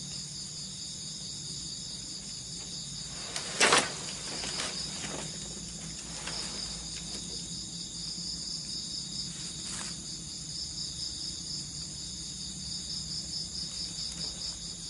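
Night insects, crickets, chirping in a steady high pulsing chorus. There is one sharp knock about three and a half seconds in, and a few fainter knocks or rustles over the next several seconds.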